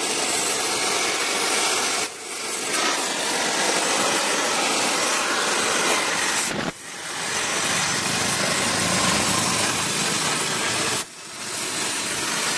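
Gas cutting torch flame burning with a steady hiss, dropping out briefly about two, seven and eleven seconds in.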